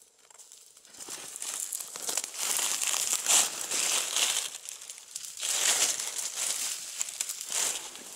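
Dry fallen leaves and twigs of the forest floor rustling and crackling in irregular bursts as someone moves through and disturbs the leaf litter, starting about a second in.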